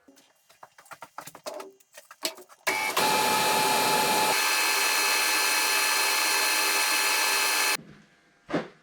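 A few light clicks and knocks of metal parts being handled, then a metal lathe runs with a loud, steady whirring rush for about five seconds and cuts off suddenly.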